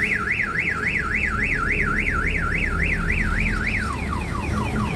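Electronic alarm siren warbling up and down about four times a second, switching near the end to quick falling chirps, over a low steady rumble.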